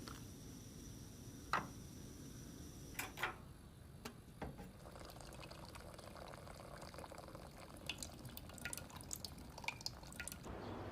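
Water running and dripping, with a few sharp clicks early on and a cluster of small clicks near the end.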